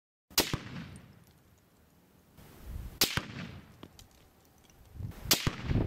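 Three rifle shots from a semi-automatic Molot VEPR chambered in 7.62x54R, about two and a half seconds apart, each a sharp crack followed by a short low rumble.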